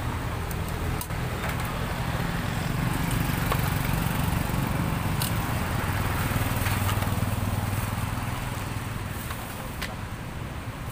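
A motor engine running with a steady low hum that slowly sinks in pitch, with a few light clicks over it.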